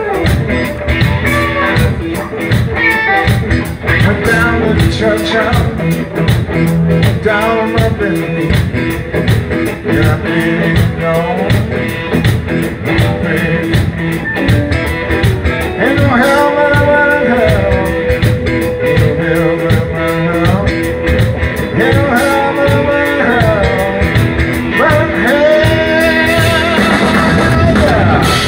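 A live electric blues band playing an instrumental passage: electric guitars, bass and drums, with a lead line sliding and bending between notes.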